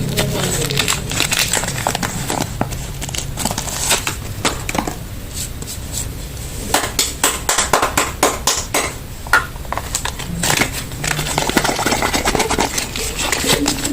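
Soap packaging being opened: crinkling wrappers with many quick clicks and crackles, busiest in the second half.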